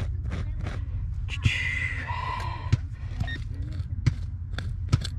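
Digging through sawdust for a metal detecting target: irregular scratchy clicks and crunches, with a short electronic tone from the detecting gear sounding briefly about two seconds in.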